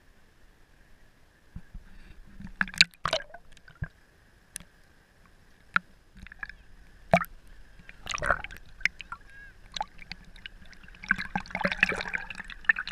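Sea water lapping and gurgling against a camera held at the waterline: irregular splashes, drips and gurgles that start about two seconds in and are thickest near the end.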